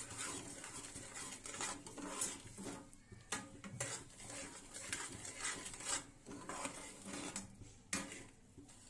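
A spoon stirring and scraping semolina through hot sugar syrup in a metal pan, in a run of irregular scrapes and clinks against the pan. This is the stage where the semolina is cooked in the syrup until it thickens, for suji barfi.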